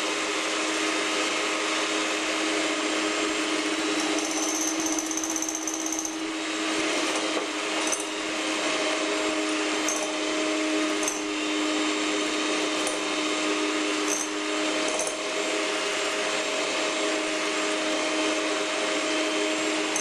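Electric hand mixer running steadily, its beaters whipping egg whites in a glass bowl, with a few brief knocks now and then in the middle.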